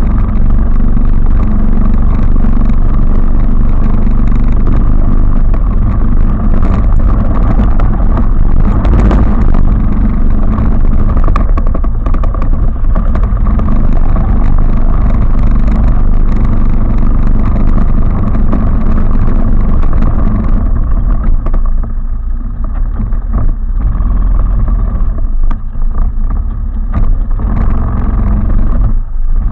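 A 250 cc quad (ATV) engine running loudly while riding. About twenty seconds in it drops to a quieter, lower running, with scattered knocks.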